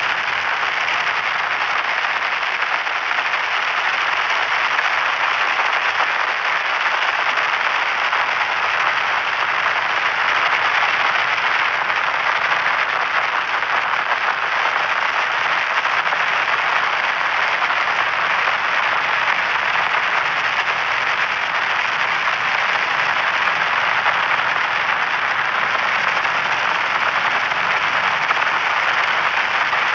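Radio-frequency static crackling steadily: a dense, even crackle with no tone or voice in it, strongest in the middle of the range.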